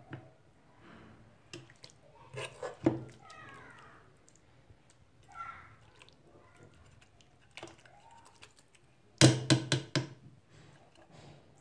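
Metal tongs and ladle knocking and scraping against a cooking pot as chicken pieces and sauce are lifted out, with a quick run of sharp knocks about nine seconds in, the loudest part.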